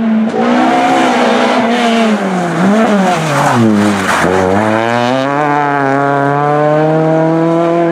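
Peugeot 206 rally car engine coming off the throttle and dropping in pitch as it brakes into a corner, with a short blip about a third of the way in. Past the middle it pulls hard, the pitch rising steadily as it accelerates away.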